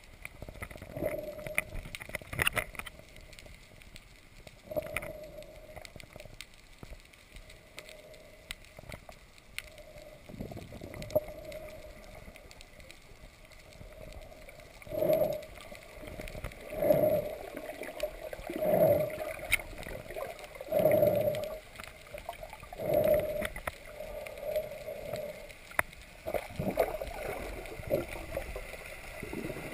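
Kayak paddle strokes in the water. In the second half they come evenly, about one every two seconds; before that they are softer and irregular.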